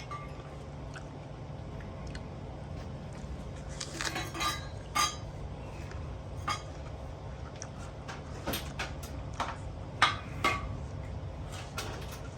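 Scattered metallic clinks and knocks from the vintage air horn set being handled and readied, the loudest about ten seconds in, over a steady low hum.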